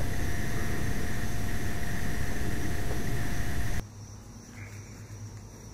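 Steady, loud hiss of background noise with faint steady whine tones in it. About four seconds in it cuts off abruptly, leaving a much quieter low hum.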